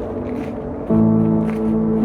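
Background music: sustained chords over a light, regular beat, with a new, louder chord coming in about a second in.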